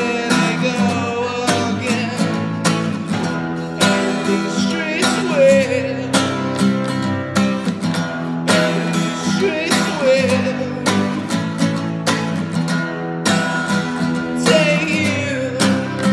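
A man singing to his own steadily strummed acoustic guitar.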